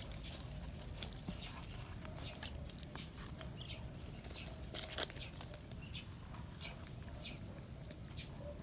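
Puppies eating and jostling over food: scattered short clicks and crunches of chewing and of kibble against the dish, with one sharper click about five seconds in.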